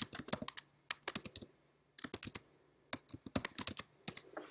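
Typing on a computer keyboard: quick runs of key clicks broken by a couple of short pauses.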